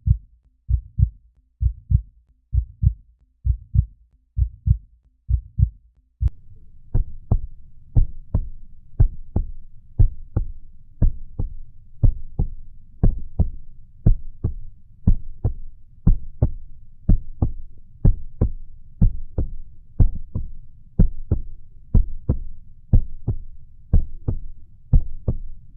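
Heartbeat sound effect: paired lub-dub thumps repeating about once a second. About six seconds in it changes to a second heartbeat recording with sharper, brighter beats over a faint steady hiss.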